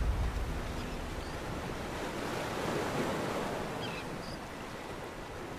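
Waves washing on open water with wind, an even rushing that swells a little in the middle. A deep boom dies away at the very start.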